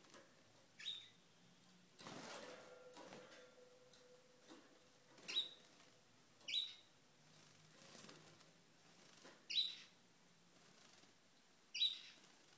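Canary giving five short, sharp chirps, each a quick downward-sweeping call, spaced a few seconds apart. A short, soft rustle of movement about two seconds in.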